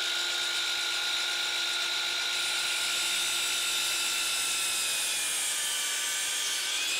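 DeWalt FlexVolt 12-inch sliding miter saw's brushless motor running at a steady high whine as its 60-tooth blade cuts down through a pressure-treated 4x6, the pitch sagging slightly near the end.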